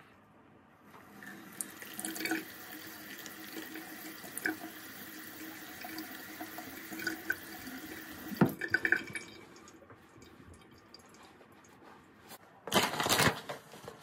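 Bathroom sink tap running steadily, with water splashing as hands wash the face; the tap stops about eight seconds in with a few clicks and splashes. Near the end comes a brief, loud rustling noise.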